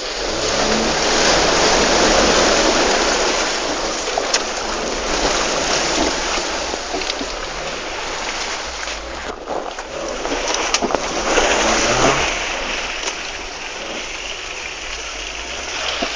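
Suzuki Vitara 4x4 engine revving in surges while the vehicle ploughs through water and mud, with a loud rushing splash over the engine that swells about a second in and again around eleven to twelve seconds in.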